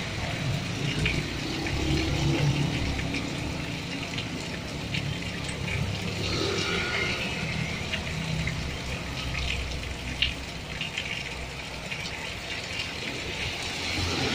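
Heavy rain falling, with water splashing and dripping close by, and cars and a motorbike swishing past on the wet road under a low traffic rumble.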